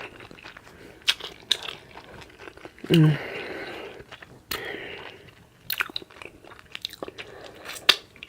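A person chewing food with the mouth open, with sharp wet smacking clicks scattered throughout. A short voiced sound comes about three seconds in and is the loudest moment.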